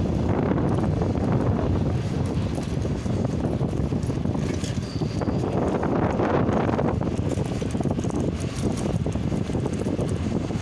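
ER9M electric multiple unit pulling away along the platform with a steady low rumble, mixed with wind on the microphone.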